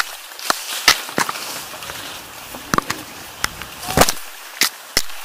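Sharp, irregular snaps and cracks of twigs and branches while pushing through dense overgrown brush off-road, about ten in all, the loudest about four seconds in.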